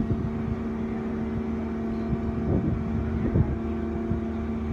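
Steady engine drone of heavy lifting machinery, one even pitch with overtones. Two short louder swells come about two and a half and three and a half seconds in.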